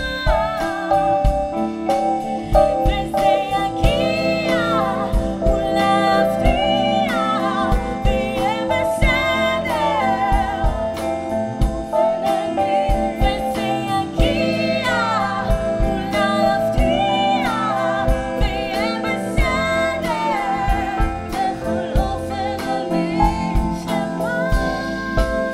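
A woman singing lead with a live band, her voice sliding through ornamented runs between held notes, over electric piano, drums and electric guitar.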